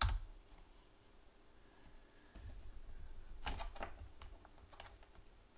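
A few separate keystrokes clicking on a computer keyboard, with long gaps between them, over a faint low rumble that comes in about two seconds in.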